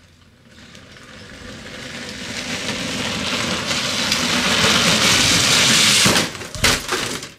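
A child's small go-kart approaching on asphalt, its tyre and motor noise swelling steadily louder as it comes up close, then falling away with a few sharp knocks near the end.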